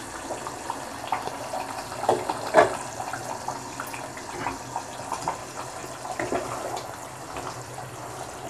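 A pot of thick onion-tomato gravy with green peas simmering and bubbling, many small pops over a steady hiss, while a spatula stirs through it. A couple of louder pops or knocks come about two seconds in.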